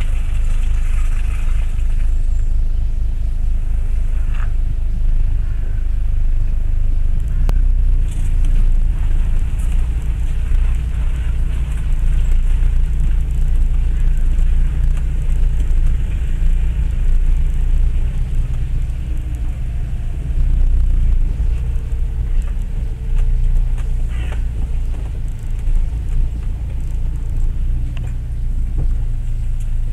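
Land Rover Freelander 1 TD4 heard from inside its cabin, driving slowly along a rutted lane: a steady low rumble from the engine and the body on the rough ground, with a few light knocks.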